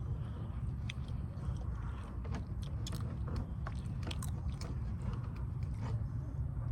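A person chewing and smacking close to the microphone while eating seafood, with scattered short, sharp clicks, over a steady low rumble.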